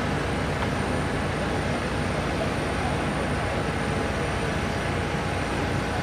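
Steady mechanical drone of machinery running at a parked airliner, holding an even level throughout.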